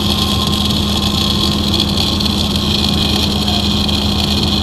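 Welding arcs hissing and crackling steadily on a steel pipe joint, over a steady low hum of welding machines.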